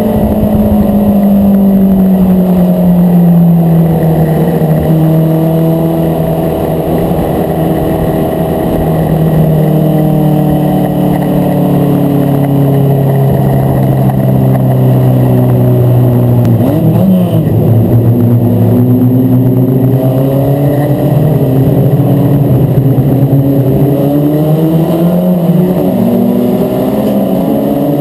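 Mini stock race car's engine at racing speed, heard from inside the cockpit. Its pitch sinks slowly, dips sharply and recovers about two thirds of the way through, then climbs again as the car accelerates.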